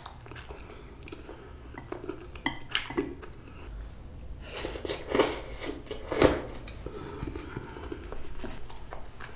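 A person eating Jjapaghetti black-bean-sauce instant noodles up close: slurping in a mouthful of noodles and chewing with wet mouth sounds, the loudest slurps coming about halfway through. A few sharp clicks in the first three seconds.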